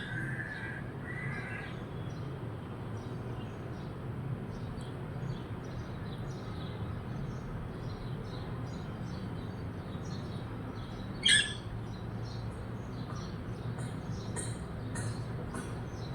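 Small birds chirping and twittering continuously, with one short, loud parrot screech about eleven seconds in, over a steady low background hum.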